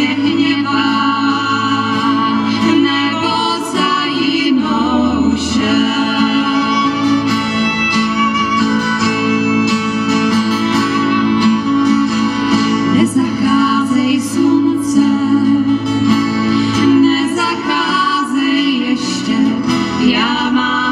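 Live acoustic band playing a song: women singing into microphones over two strummed acoustic guitars, a violin, a double bass and a djembe.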